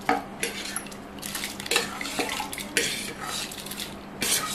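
Steel ladle stirring rice through boiling water in a brass pot: swishing water with several sharp metallic clinks and scrapes of the ladle against the pot.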